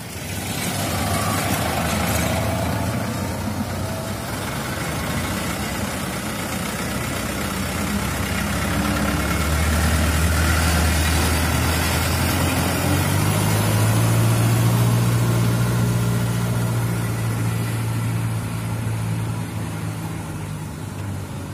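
Diesel dump truck engines running as the trucks pass close by. A deep engine drone builds about halfway through, holds for several seconds, then eases off near the end.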